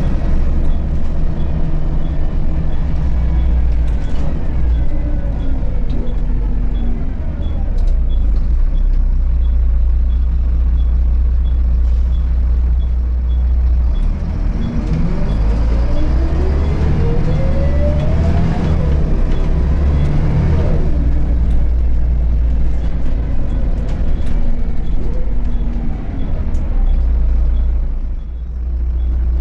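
2002 Volvo B7RLE bus's rear-mounted six-cylinder diesel and drivetrain running under way, heard from inside the passenger cabin, with a rising whine as the bus accelerates from about halfway. A light ticking about twice a second runs through much of it.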